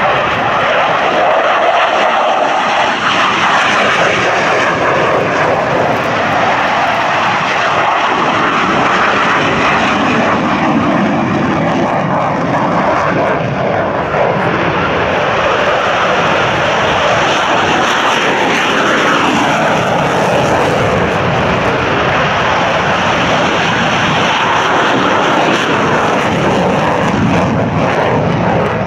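Continuous loud jet noise from General Dynamics F-16 Fighting Falcons, each powered by a single turbofan, at takeoff power as they climb out one after another. The noise holds steady with slow shifts in pitch as each jet passes.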